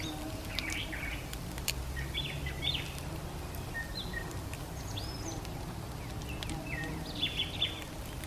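Small birds chirping outdoors: scattered short chirps and a few quick sweeping calls, over a low steady hum.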